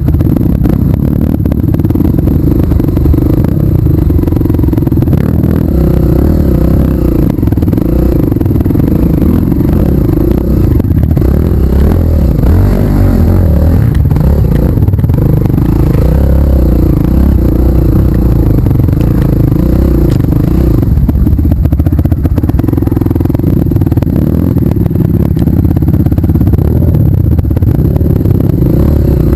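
Off-road trail motorcycle engine running continuously, its pitch wavering with the throttle, with clattering and scraping over rough ground.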